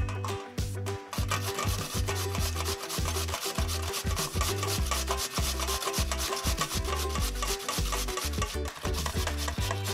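A raw potato grated on a stainless steel box grater: quick, repeated rasping strokes, with background music underneath.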